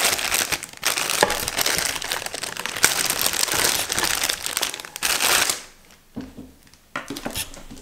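Thin clear plastic bag crinkling as a power cord is pulled out of it. The crinkling stops about five and a half seconds in, and a shorter rustle comes again near the end.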